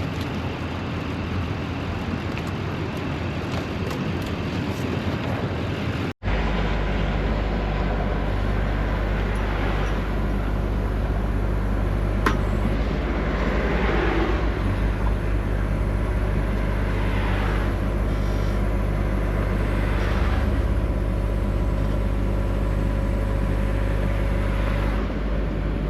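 Vehicle engine running steadily. There is a sudden break about six seconds in, after which a steady, deep engine drone continues.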